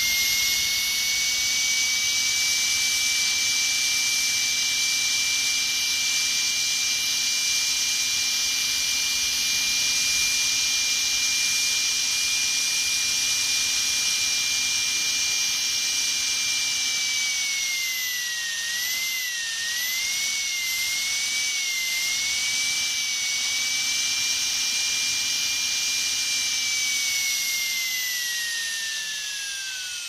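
Dentist's drill whining at a high, steady pitch. Just past the middle the pitch sags and wavers for a few seconds, then it steadies again and winds down near the end.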